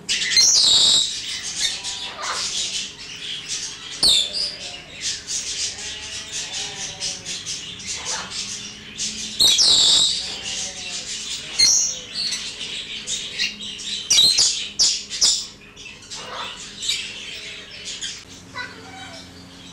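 A flock of budgerigars chattering busily in an aviary, broken by several louder squawks, the chatter thinning near the end.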